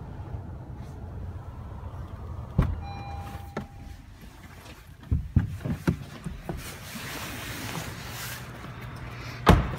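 Someone climbing out of the back seat of a 2017 Honda CR-V: a clunk of the rear door opening, then a short electronic chime from the car, a run of knocks and rustling against the seat and door, and a heavier thump near the end, all over a steady low hum.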